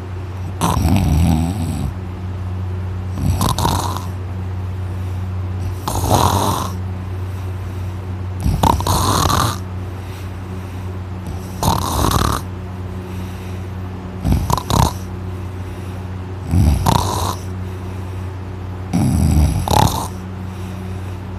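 A man snoring very loudly, about eight snores evenly spaced every two and a half to three seconds. A steady low hum runs underneath.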